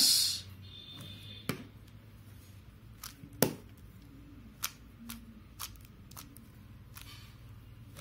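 MoYu Weilong GTS 2M speed cube being turned by hand, its plastic layers clicking as they snap into place at irregular intervals, the loudest click about three and a half seconds in.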